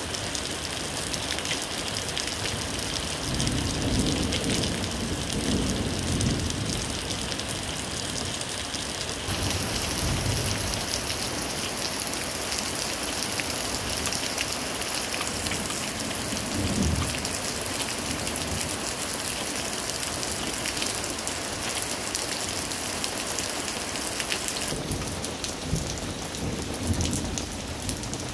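Heavy rain falling and pattering steadily during a thunderstorm, with low thunder rumbling a few seconds in and again briefly about halfway through.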